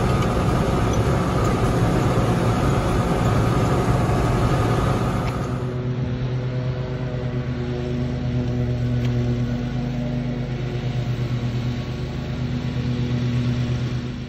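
A John Deere tractor's engine running steadily as it drives, heard from inside the cab. About six seconds in it gives way to a John Deere Z-Trak zero-turn mower's engine running steadily as it cuts grass.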